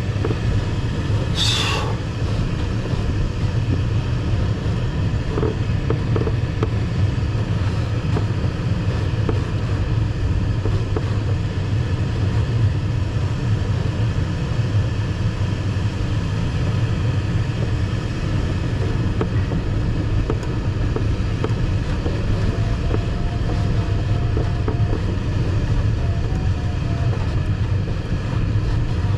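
Steady rush and low rumble of airflow around the cockpit of an ASW 15 sailplane in gliding flight.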